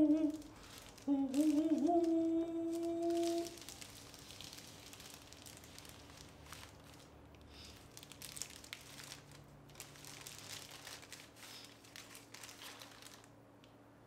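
Clear plastic wrapping crinkling and rustling as it is pulled off a metal YouTube Silver Play Button plaque. For the first three or so seconds a man's voice holds a drawn-out hummed note, louder than the crinkling that follows.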